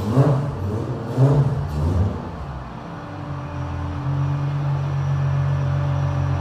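Nissan Patrol VTC 4800's 4.8-litre straight-six engine running at a steady speed. It gets louder about four seconds in and then holds an even note.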